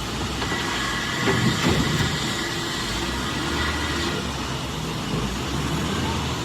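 Heavy machinery running with a steady rumbling, clattering noise and a couple of low thumps about a second and a half in.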